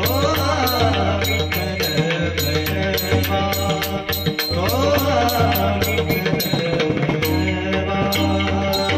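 Marathi devotional bhajan: a male voice sings long gliding phrases over a steady drone, with pakhawaj drum strokes and bright small-cymbal clicks keeping an even rhythm.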